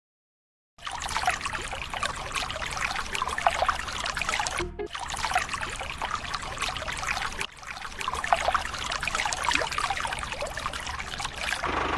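Water pouring and trickling from a small homemade water tanker onto plants, a steady splashing patter broken by short breaks about five and seven and a half seconds in.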